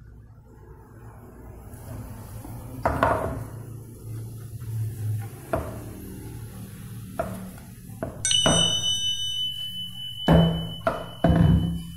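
Hollow knocks and thuds of rigid plastic water-filter housings being handled and set down, several of them and mostly in the second half, over a low steady hum. About eight seconds in, a high bell-like ding rings out and hangs on to the end.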